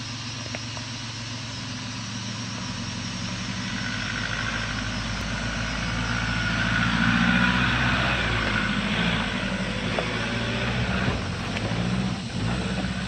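Nissan Patrol's 3.0-litre four-cylinder turbo-diesel engine working under load as the 4WD climbs a steep, rutted dirt hill. It grows louder as the vehicle approaches, is loudest as it passes close by about seven to eight seconds in, and stays fairly loud after that.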